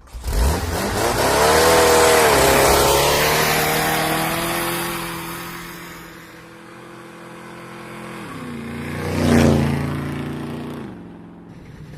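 A vehicle engine revving, its pitch gliding up early on and then holding. About eight and a half seconds in the pitch drops and a loud rushing swell peaks a second later, as of a vehicle passing close by.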